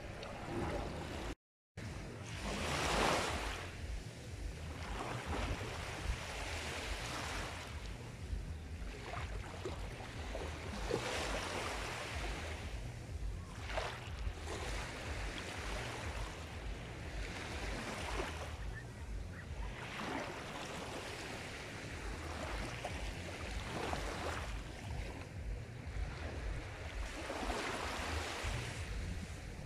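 Sea waves washing onto a shore: a steady rush of surf that swells every few seconds as each wave breaks. There is a sudden brief cut to silence about a second and a half in.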